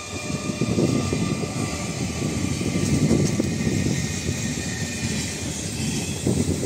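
ICF-built WAU-4 electric multiple unit passing at speed: the DC traction motors' screaming whine, several steady high tones, over a continuous rumble and rapid clatter of steel wheels on the rails.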